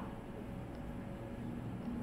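Quiet room tone: a low, steady hum with no distinct events.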